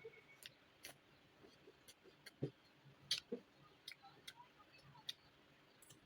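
Faint eating sounds: a dozen or so irregular soft clicks and smacks of chewing and mouth noises, with a slightly stronger click about two and a half seconds in and another about three seconds in.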